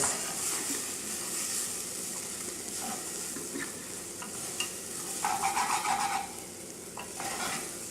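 Basmati rice frying in butter in a pan, sizzling steadily while a spoon stirs it, with small clicks and a longer scrape about five seconds in.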